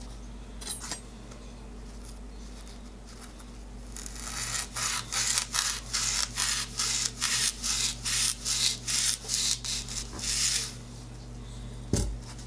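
Kitchen knife sawing back and forth through a dish-washing sponge, a rasping stroke about three times a second, starting about four seconds in and stopping after some six seconds. A single knock near the end.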